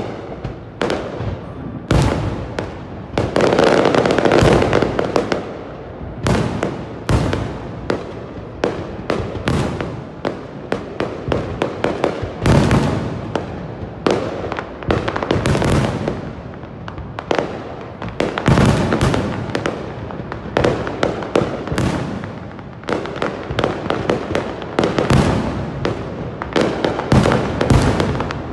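Fireworks going off in a dense, continuous barrage of bangs and crackles, with a long stretch of crackling a few seconds in.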